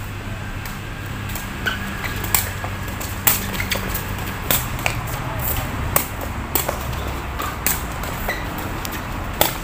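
A sepak takraw ball being kicked and headed back and forth in a rally: about a dozen sharp hollow smacks at uneven intervals. A low steady hum sits underneath.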